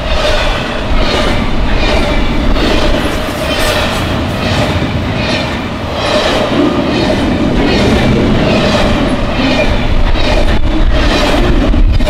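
Double-stack intermodal well cars of a freight train rolling past at about 60 mph: a loud, steady rumble and rush of wheels on rail, with an even clickety-clack of wheels striking rail joints.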